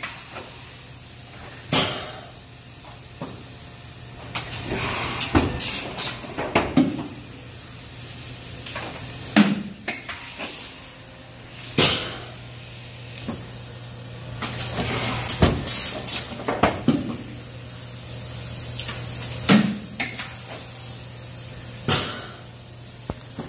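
Industrial plastics-processing machine running with a steady low hum and sharp clunks every two to three seconds, several followed by a brief rush of noise.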